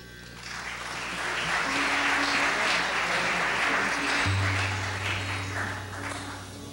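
Audience applauding, swelling over the first two seconds and dying away near the end, over a steady low drone. A low hum comes in suddenly about four seconds in.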